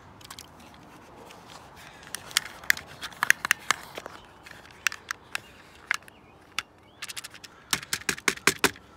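Plastic clicks and scrapes of an RC toy boat and its remote being handled, ending in a quick run of sharp clicks as the remote's buttons are pressed to test whether the water-damaged boat still runs.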